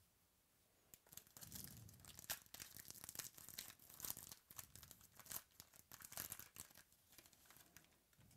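A foil trading-card pack being torn open by hand, with faint, quick crinkling and crackling of the wrapper from about a second in until near the end.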